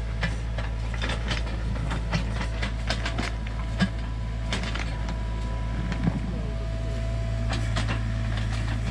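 Sany U35 mini excavator's diesel engine running steadily under working load while its bucket digs and scrapes rocky dirt, with frequent sharp knocks and clacks of stones and bucket on rock.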